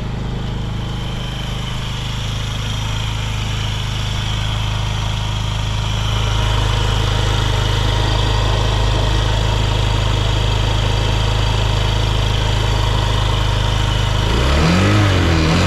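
Honda Smart Dio (AF56) scooter's carbureted 50 cc four-stroke single running at a steady idle. Near the end it is blipped once, the pitch rising and falling back. The seller describes it as running with no abnormal noises and revving up well.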